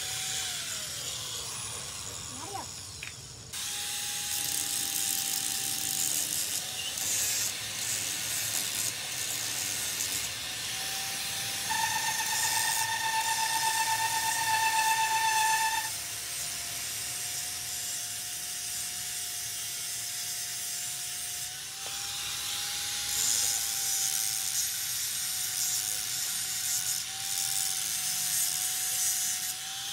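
Workshop tool noise: hissing and scraping over a faint steady whine, with a louder, higher whine lasting about four seconds midway.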